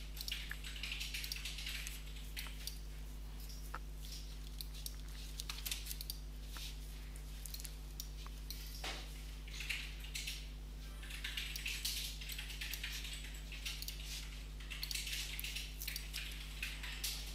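Faint clicks and light taps from a computer mouse and keyboard, scattered and irregular, over a steady low hum.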